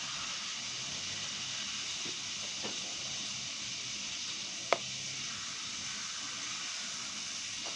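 Bread sizzling in a hot pan: a steady hiss, with one sharp click a little past halfway.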